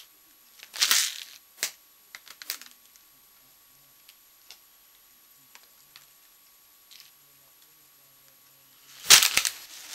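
A plastic snack packet being handled: a few soft rustles and clicks in the first three seconds, faint ticks in the quiet middle, then a louder burst of crinkling about nine seconds in.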